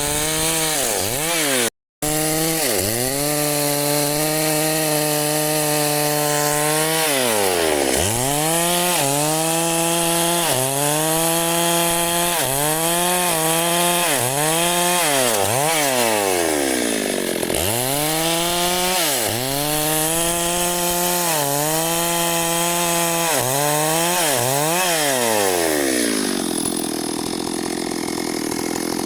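Chainsaw cutting wood, its engine pitch sagging and recovering again and again as the chain bites in and eases off. Near the end the engine note drops away into a lower, rougher sound.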